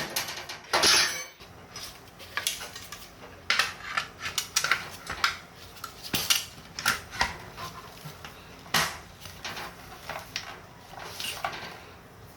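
Irregular clinks and clatters of small hard objects being handled, some loud, others light, over a low steady background.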